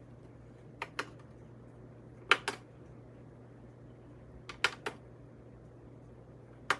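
Control buttons of a Lasko T42951 tower fan clicking as they are pressed and released, in pairs about every two seconds. The fan does not respond: its controls are dead. A faint steady low hum lies underneath.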